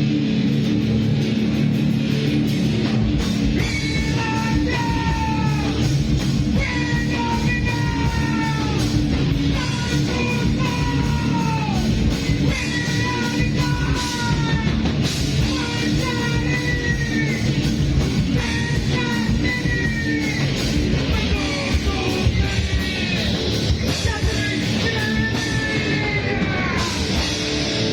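A live rock band playing loud, with electric guitars, bass and drums. From about four seconds in, a vocalist sings short repeated phrases, each falling off in pitch at the end.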